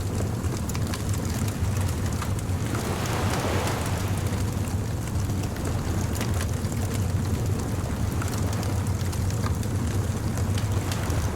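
Beach bonfire ambience: a wood fire crackling and popping in scattered small clicks over a steady low rumble of surf, with a wave washing in about three seconds in.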